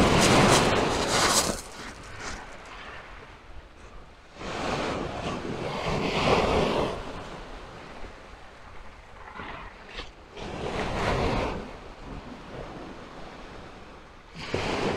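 Small sea waves breaking and washing up a sand-and-shingle beach, swelling and falling away every few seconds, with wind on the microphone.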